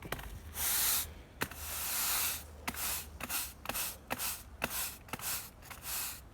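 Broom sweeping fine kiln-dried sand across block paving to fill the joints: scratchy brushing strokes, two longer sweeps and then quicker ones about two a second.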